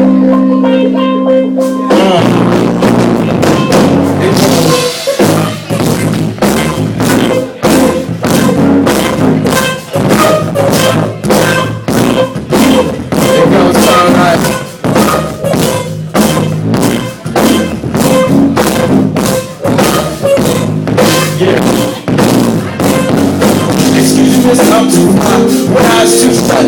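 Live band playing an instrumental groove: sustained chords at first, then a full drum kit comes in about two seconds in with a steady beat under guitar and bass.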